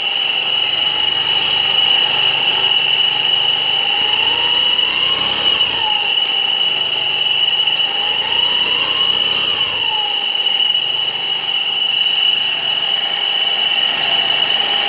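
Kawasaki Curve motorcycle engine running, revved briefly twice, with a steady high-pitched whine throughout. This is the noise being troubleshot.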